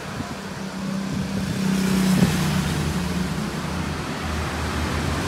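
Engine of a motor vehicle running nearby, a steady low hum that grows louder about a second in and holds.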